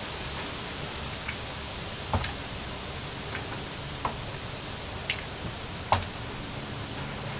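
Hand caulking gun in use: short sharp clicks from its trigger and plunger rod, irregular and about one a second, the loudest about six seconds in, over a steady background hiss.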